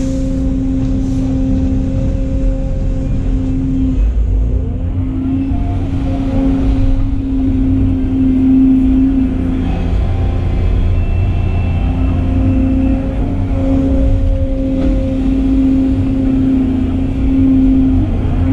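Volvo excavator's diesel engine and hydraulics working under load, heard from inside the cab through a bucket-loading cycle: a low rumble with a steady hum that drops out briefly about four seconds in and again around ten seconds as the boom and bucket change motion.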